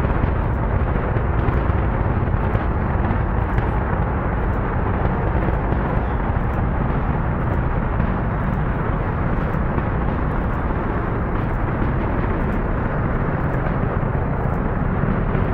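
Four RS-25 liquid hydrogen–oxygen rocket engines of the SLS core stage firing in a static hot-fire test: a steady, deep roar with faint crackles on top, with no change in level.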